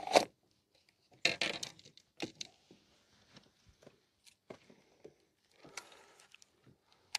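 Handling noise from fishing gear in a boat: a sharp knock right at the start, a short rustling clatter about a second in, then scattered light clicks and rattles as a baitcasting rod is picked up and readied for a cast.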